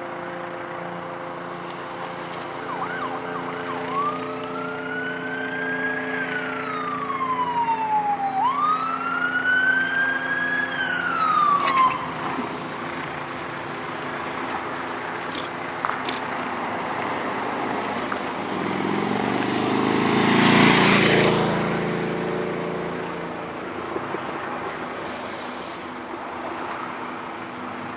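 Police car siren on wail, rising and falling twice and then stopping. About twenty seconds in, a vehicle passes close by with a brief rush of tyre and engine noise.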